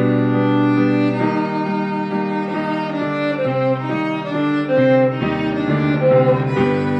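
Background music: bowed strings, violin and cello, playing a melody of held notes that change about every half second.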